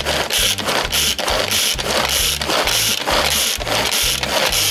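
Manual pull-cord food chopper being pulled rapidly, a little over two strokes a second: each pull whirs the blades and ratchet in the plastic bowl as they chop tomatoes, shallots, garlic and parsley.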